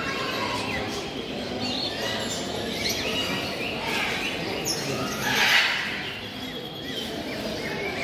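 Many caged parrots and other show birds chirping and calling over a steady low hubbub, with one louder call about five and a half seconds in.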